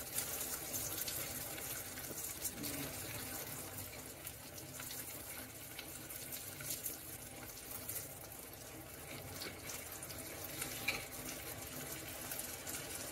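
Chicken pieces sizzling in hot oil and butter in an enamelled cast-iron Dutch oven: a steady, quiet hiss with small crackles.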